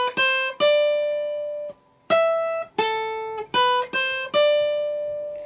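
Cutaway acoustic guitar playing single picked notes high on the neck: a short melody hook in the key of C, about eight notes, with the third and last notes left to ring for a second or more.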